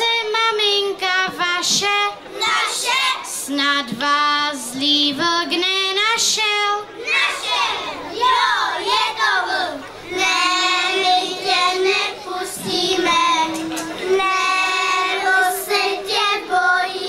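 Children singing a song, in phrases of held notes with short breaks between them.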